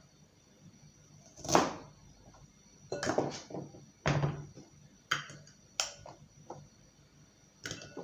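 A knife slicing an onion on a cutting board: a string of separate, irregular knocks and cuts, about seven of them.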